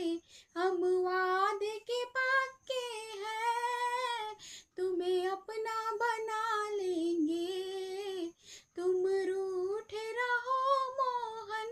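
A woman singing a Hindi devotional bhajan unaccompanied, in phrases of long held notes that bend up and down, with short breaths between phrases.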